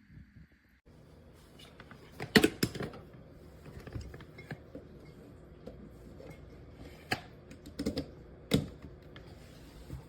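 A scattered series of sharp clicks and knocks, about half a dozen over several seconds, the loudest a couple of seconds in, over a low steady background.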